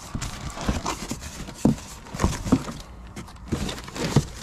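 Irregular knocks and clunks of tools and metal parts being handled while a motorcycle exhaust is worked into place, with the loudest knocks a little past the middle.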